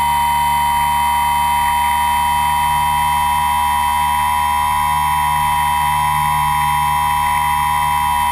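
Steady high-pitched whine of a radio-controlled aircraft's electric motor and propeller in flight, recorded by the camera on board, holding one pitch throughout.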